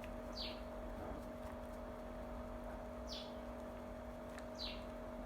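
A bird chirping three times, each chirp short and falling in pitch, over a steady electrical hum.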